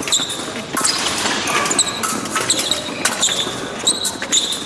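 Épée fencers' footwork on the piste: shoe soles squeaking and feet stamping, with scattered short clicks, in a large echoing hall.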